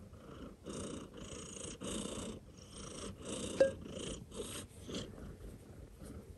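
Domestic cat purring hard close to the microphone, the purr pulsing about twice a second with its breathing and fading near the end. There is a single sharp click a little past midway.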